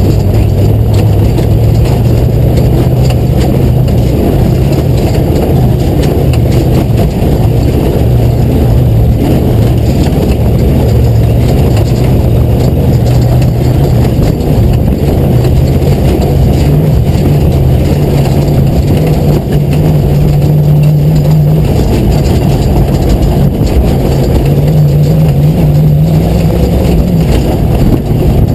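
V8 engine of an I-beam Ford Ranger off-road truck running hard at speed, its pitch rising and falling with the throttle, over loud, steady rumble from the tyres and chassis on dirt, heard from inside the cab.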